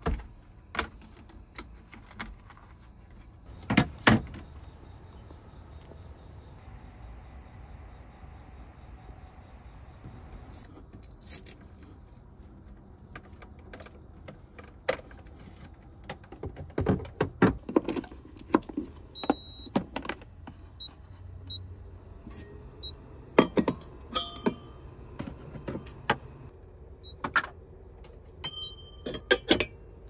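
Scattered clicks, taps and knocks of small objects being handled, with two sharp knocks about four seconds in and a busier run of clatter through the second half.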